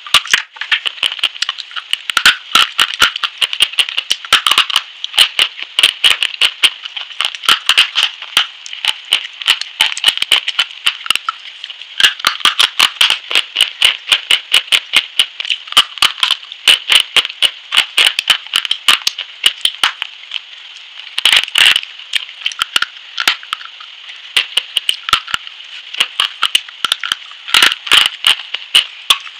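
Close-miked crunching and crumbling of a chalk-like bar as it is bitten, chewed and broken between the fingers: dense runs of sharp, crisp clicks, several a second, with a brief lull about two-thirds of the way through.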